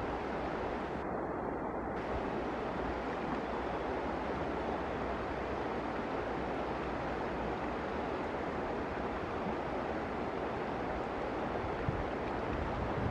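Shallow river rushing over stones: a steady wash of flowing water, with a low rumble of wind on the microphone.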